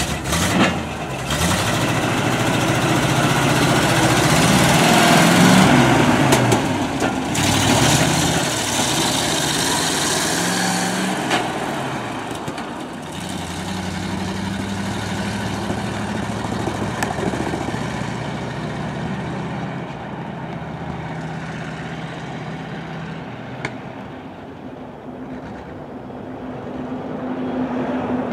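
Ford dump truck's engine pulling away and accelerating, its pitch climbing several times as it works up through the gears, then running steadily and fading as the truck drives off.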